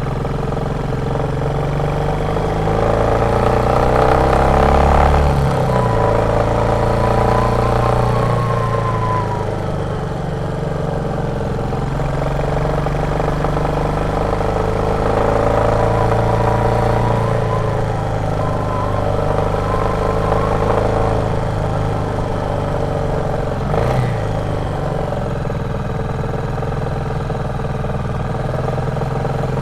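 Royal Enfield Meteor 350's single-cylinder thumper engine running on the move, its pitch rising and falling several times with the throttle. There is one short knock about three quarters of the way through.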